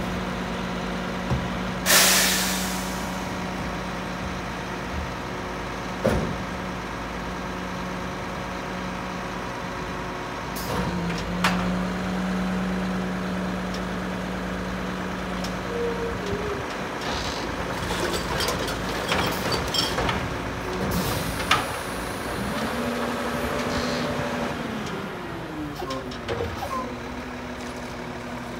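Mack LEU garbage truck's diesel engine running, with a sharp air-brake hiss about two seconds in. From about 11 s the engine speeds up to drive the hydraulics as the front arms lift the Kann co-collector carry can over the cab to dump it, then lower it back. Knocks and clanks from the can and arms come at several points, and the engine pitch rises and falls as the can comes down.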